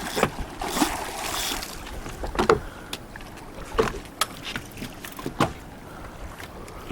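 Water slapping against a small boat's hull in irregular splashes, about half a dozen, over a steady hiss of water and wind.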